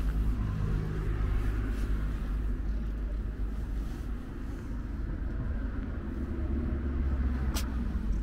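A cat purring close to the microphone, a steady low rumble. A single sharp click near the end.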